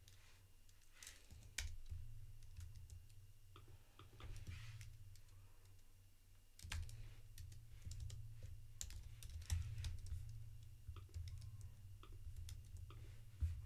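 Computer keyboard typing: scattered, faint keystrokes and clicks over a low steady hum.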